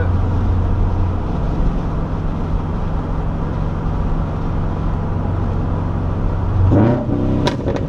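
Subaru Impreza 2.0i with an aftermarket exhaust driving along, its engine and road noise droning steadily inside the cabin. The drone drops a little about a second in, and near the end the engine note swells and rises briefly.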